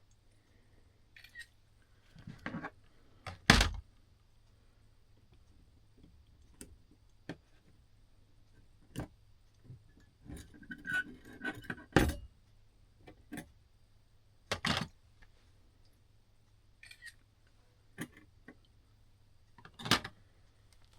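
Small metal parts of a Seth Thomas clock movement clicking and clinking as it is taken apart by hand, with scattered light clicks and a few louder knocks as pieces are handled and set down.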